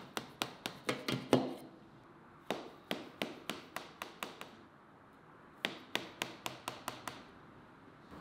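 Kitchen knife cutting cornbread in a pan, its blade tapping down through the crust onto the pan bottom in quick runs of sharp taps, about four or five a second. Three runs with short pauses between; the loudest tap is in the first run.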